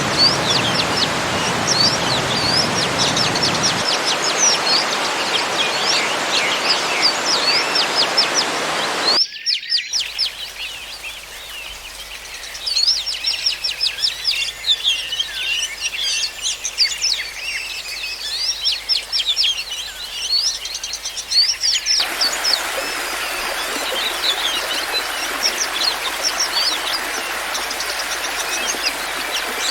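Many small birds chirping and twittering rapidly over the steady rush of a small garden waterfall. After a brief break about nine seconds in, the water sound drops away and the birdsong carries on alone, until the rush of water returns about twenty-two seconds in.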